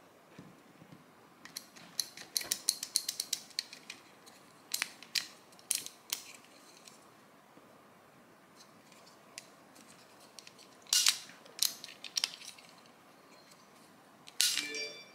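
Small jigsaw parts being handled during a teardown, giving sharp clicks and clinks in scattered bursts. There is a rapid run of clicks about two seconds in and another cluster around eleven seconds, ending in a short metallic ring.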